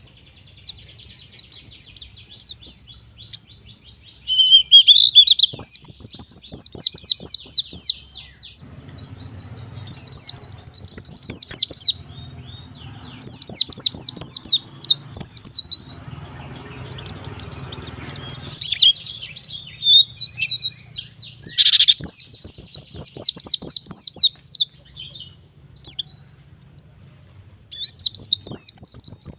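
White-eye (pleci) singing a fast, high twittering song in bursts of two to four seconds, each a rapid string of sharp downward-sweeping notes, with short pauses between bursts.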